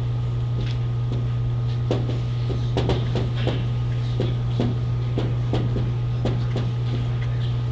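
A marker drawing on a flip-chart pad, in a series of short, quick strokes and taps. Under it runs a steady low electrical hum.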